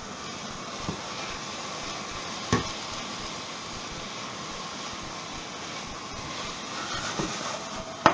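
Diced pork and vegetables sizzling in a hot non-stick frying pan while being stirred with a silicone spatula. A few short knocks against the pan, one about two and a half seconds in and the loudest right at the end.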